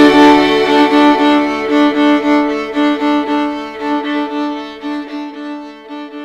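Instrumental music with a violin playing a run of short repeated notes, gradually fading out toward the end.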